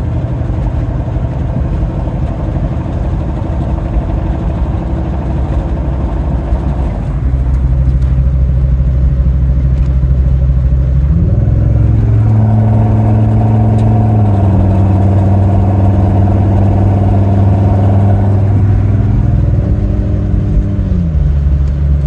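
2002 Ford Excursion's 6.8-litre V10 running under load while climbing at highway speed, heard from the cab with the window down. It is misfiring on one cylinder from a failed ignition coil, which is worst under load. The engine note gets louder about seven seconds in, steps up in pitch about eleven seconds in, and drops back near the end.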